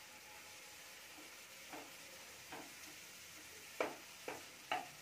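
Potato fries deep-frying in hot oil, a soft steady sizzle, with a metal slotted spoon clinking against the pan a few times as the fries are turned, mostly in the last second or so.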